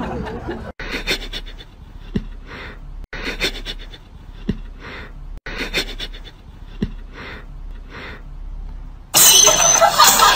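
A cat sniffing a foot in a striped sock: short breathy huffs and a faint click, the same few seconds heard three times over. Loud music comes in near the end.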